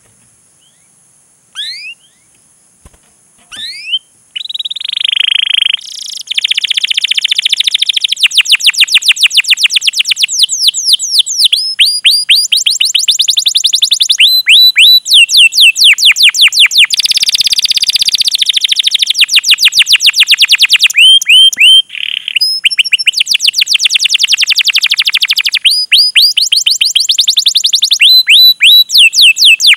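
Domestic canary singing: a few separate chirps, then about four seconds in a long, loud song of rapid rising 'cuit cuit' notes repeated many times a second and rolling trills, with a brief pause about two-thirds through.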